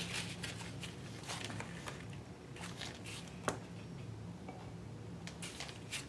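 Faint rustling and light taps of paper scraps being handled, with one sharper tap about three and a half seconds in, over a low steady hum.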